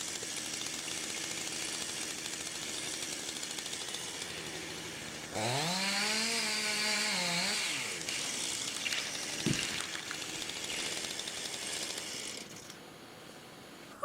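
Two-stroke chainsaw engine running, revving up sharply about five seconds in, holding high revs for about two seconds, then dropping back. A single sharp knock sounds a few seconds later.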